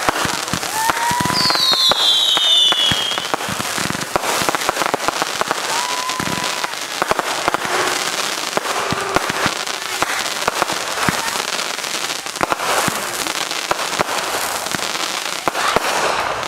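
Consumer firework cake firing a rapid barrage of shots with dense crackling throughout. A falling whistle comes about two seconds in, and short whistles are heard now and then.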